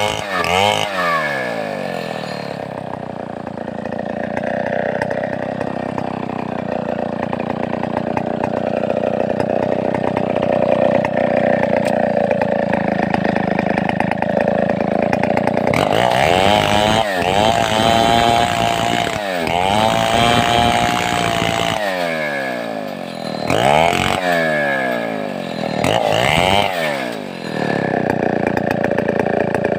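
Large two-stroke chainsaw of the Stihl 070 class running loud: held at a fairly steady, lower engine pitch for the first half, as under load in a cut, then revved up and down repeatedly through the second half.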